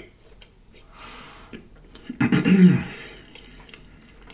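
Soft mouth clicks and a breath from a man eating, then, a little over two seconds in, a short, loud voiced sound from his throat.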